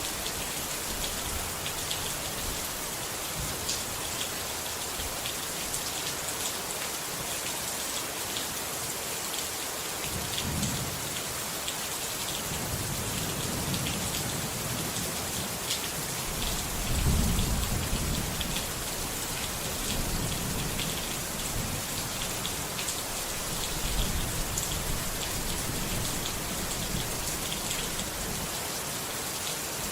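Steady heavy rain falling, with low rolls of thunder rumbling in and out; the loudest roll comes about halfway through.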